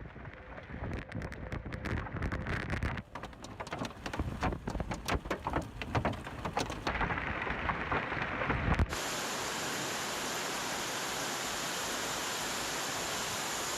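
Hailstones pelting hard surfaces: a dense, irregular clatter of sharp impacts over the hiss of heavy rain. About nine seconds in, the sound cuts abruptly to a steady, even rush of downpour.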